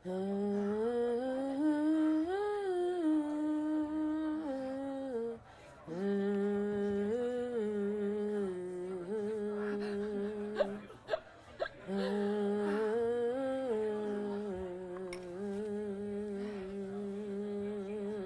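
A person humming a slow, wordless melody of long held notes in three phrases, with short breaks about five seconds in and near the middle, where a couple of brief clicks are heard.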